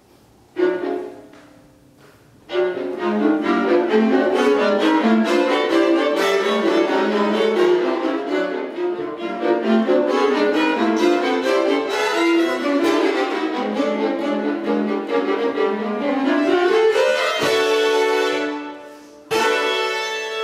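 String quartet of two violins and two violas playing contemporary chamber music. A sudden loud chord about half a second in dies away, then a dense flurry of fast short notes runs until an upward glide near the end. After a brief dip, a sharp attack opens a held chord.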